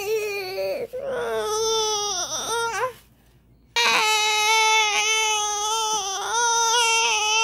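A baby crying in long, steady wails, with a falling, wavering cry about two seconds in. It breaks off for most of a second about three seconds in, then wails again.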